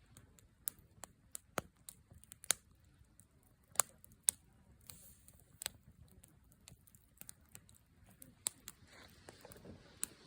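Wood campfire crackling, with irregular sharp pops and snaps over a soft hiss.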